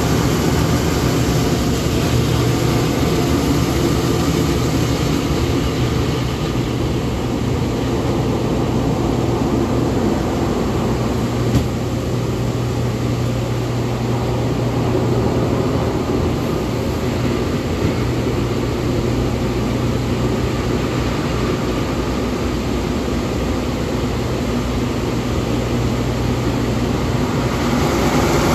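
Hydromassage bed running: its pump and water jets make a steady mechanical hum with a constant low tone underneath. A single short knock about twelve seconds in.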